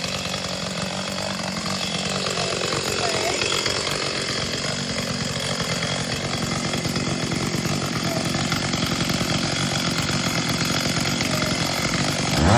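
Two-stroke gas chainsaw running at full throttle, cutting steadily into a tree trunk, with small shifts in pitch as the chain bites into the wood.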